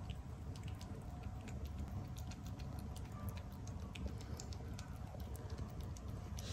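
British Shorthair kitten licking vitamin paste from a tube nozzle: an irregular run of small wet tongue clicks.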